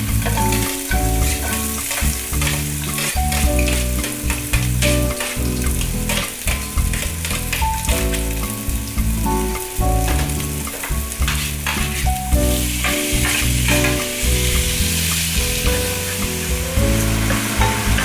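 Onion slices frying in oil in a nonstick frying pan: a sizzle with scattered clicks of utensils against the pan, the sizzle growing louder about two-thirds of the way through. Background music plays along.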